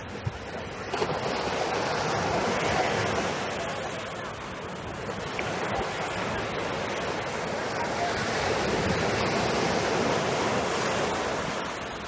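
Sea waves breaking and washing up the sand at the water's edge. The hiss of the surf swells and fades twice, once about a second in and again past the middle.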